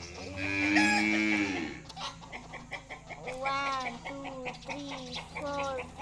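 Farmyard animal calls: one long, low call lasting about a second and a half near the start, then a string of short calls that rise and fall in pitch.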